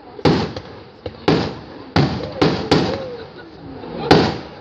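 Aerial firework shells bursting overhead: about six sharp bangs, each trailing off in an echoing rumble, the loudest a little after four seconds in.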